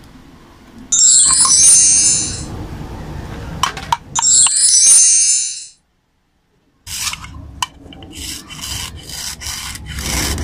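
A plastic toy knife sawing and scraping at a wax crayon on a plastic toy cutting board, in repeated rasping strokes. Two short, bright chiming sound effects are laid over it, about a second in and again about four seconds in, louder than the scraping. The scraping stops abruptly for about a second, then resumes.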